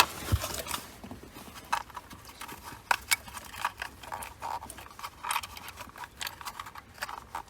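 Irregular light clicks and taps of plastic wiring-harness connectors being handled and plugged in on a car alarm installation.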